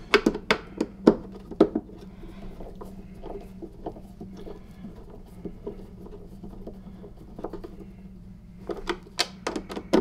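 Handling and screwing together the plastic housing of a vacuum cleaner canister: a run of sharp clicks and knocks in the first couple of seconds and again near the end, with lighter scattered ticks between, over a steady low hum.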